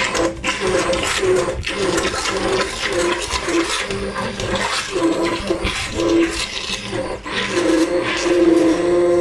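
Hand blender running in a pot of boiled potatoes with milk and butter, puréeing them into mash: a steady motor hum with wet churning, broken by a couple of brief pauses early on.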